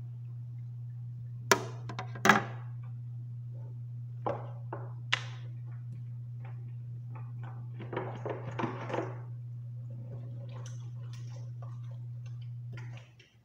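Plates and dishes knocking and clinking as they are washed by hand at a kitchen sink: two sharp knocks near the start, then a run of smaller clinks, over a steady low hum that cuts off near the end.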